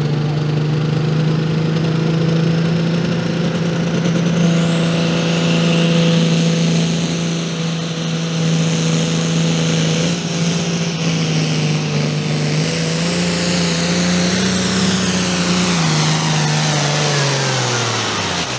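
466-cubic-inch turbocharged diesel of a New Holland light limited pulling tractor at full throttle, pulling the sled. It holds a steady engine note over a high turbo whistle that climbs in pitch a few seconds in. Near the end the engine note and the whistle fall away as the run ends.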